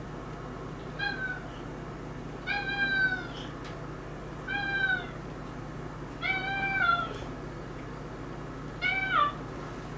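A cat meowing five times, about every two seconds. The calls are short, each one dropping in pitch at the end.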